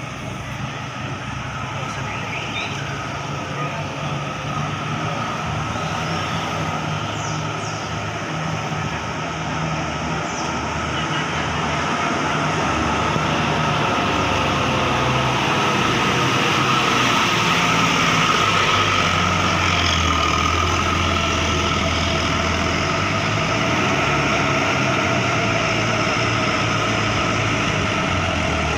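Heavy bus engine running and pulling out, growing steadily louder over the first half, with a steady high tone above the engine noise and voices in the background.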